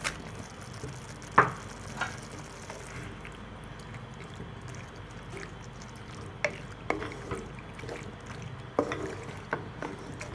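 Boiled penne pasta tipped into thick tomato sauce in a pan and stirred with a wooden spatula: wet squelching and stirring with scattered knocks of the spatula and bowl against the pan, the sharpest about a second and a half in.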